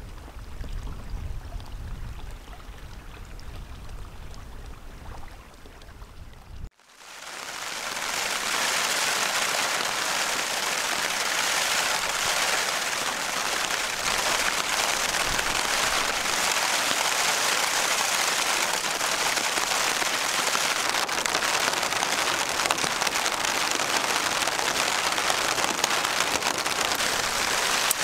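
Heavy rain falling steadily, heard from a tent doorway, setting in sharply about seven seconds in. Before it, a few seconds of low wind rumble on the microphone.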